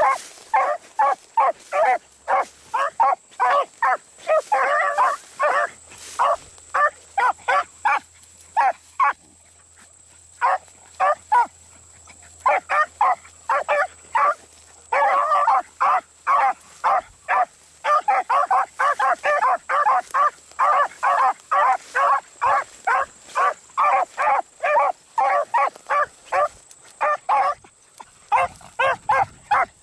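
Beagles giving tongue while trailing a rabbit: a fast, steady run of short barks from two hounds. The barking breaks off for a couple of seconds about nine seconds in, and briefly again near the end.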